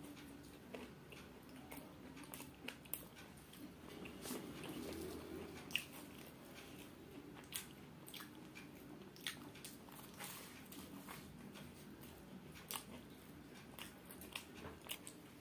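Close-up chewing and biting of a deep-fried samosa, its crisp pastry crust crunching in irregular sharp crackles.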